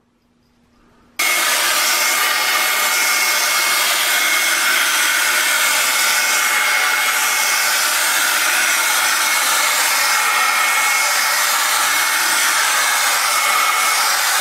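Bissell ProHeat 2X Revolution Pet upright carpet cleaner running over carpet: a loud, steady whirring of its suction motor and brushes with a thin high whine, cutting in abruptly about a second in.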